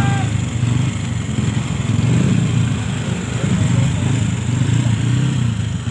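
Bored-up Honda Vario 150 scooter's single-cylinder engine running at idle, a low rumble that swells and eases unevenly.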